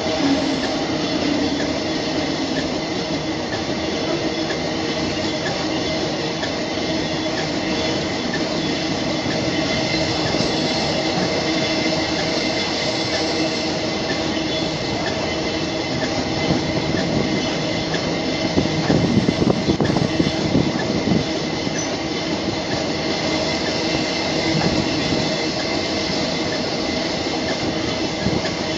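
Loaded iron-ore wagons of a long freight train rolling past: a steady rumble of steel wheels on rail with steady high squealing tones from the wheels, and a louder stretch of clattering knocks about two-thirds of the way through.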